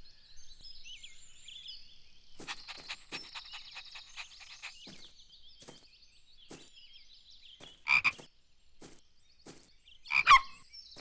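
Cartoon frog croaking: a run of quick clicking croaks, then two louder croaks about eight and ten seconds in, the second falling in pitch. Faint bird chirping runs underneath.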